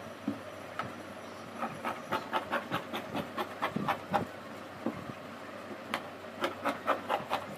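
Scissors snipping through black abaya cloth along a chalk line, a quick run of cuts, a short pause, then another run.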